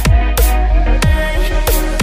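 Electronic background music with a heavy bass and a steady beat.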